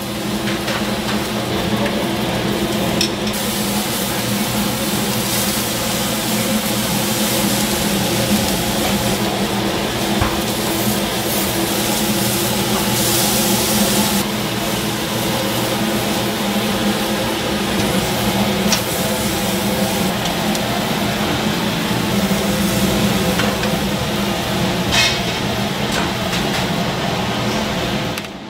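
Food sizzling steadily on a hot cooking surface, over a constant low hum, with a few faint clicks.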